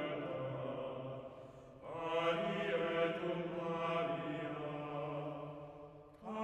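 Slow sung chant in long held notes. One phrase dies away in the first couple of seconds, and a new phrase enters about two seconds in and is held until it fades near the end.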